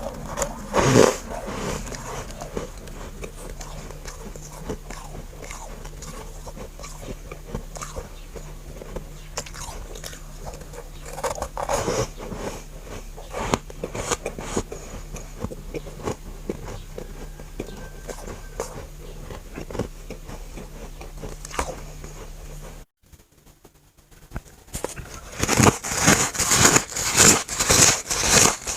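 Freezer frost and ice chunks being bitten and chewed close to the microphone: a few scattered crunchy bites over a steady low electrical hum, then after a short break near the end, quick, dense, louder crunching.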